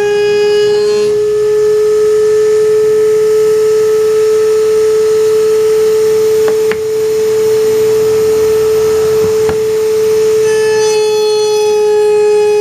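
A steady high-pitched tone with overtones, held at one pitch throughout, with two faint clicks in the middle.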